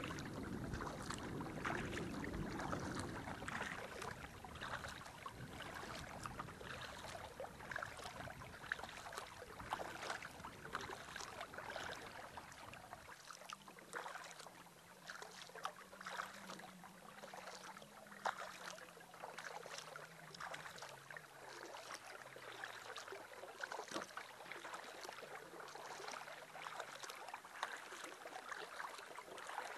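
Canoe paddling: water splashing and dripping off the paddle in many small, irregular ticks. A low rumble under it drops away about a third of the way in.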